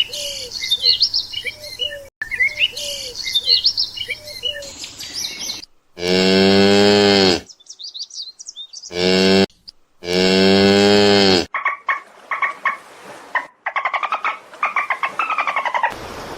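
Small birds chirping in quick repeated notes, then a cow mooing three times: a long moo, a short one and another long one. More short chirps follow near the end.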